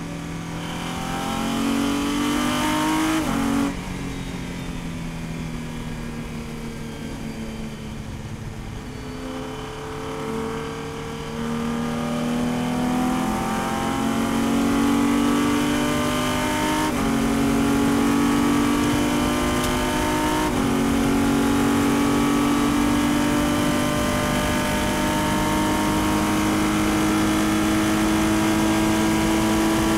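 Racing prototype's engine heard from inside the cockpit under acceleration. The revs climb and drop sharply about three and a half seconds in, run lower and quieter for several seconds, then climb again, with upshifts about seventeen and twenty seconds in and a long, steady rise after the last.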